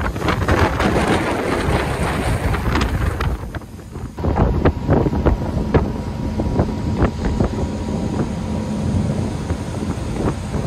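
Wind buffeting the microphone of a camera on an open boat moving along a fjord: a loud, gusty rumble with crackles. It eases briefly a little over a third of the way through.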